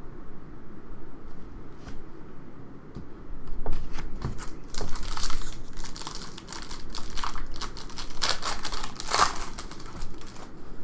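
Plastic crinkling and rustling in quick, uneven bursts as trading cards are handled, getting louder a few seconds in.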